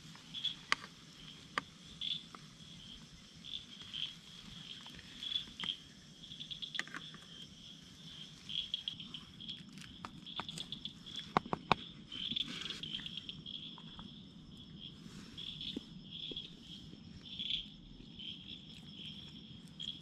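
Insects chirping, a high repeated chirp every half second or so, over a low steady haze, with a few scattered sharp clicks, the loudest about halfway through.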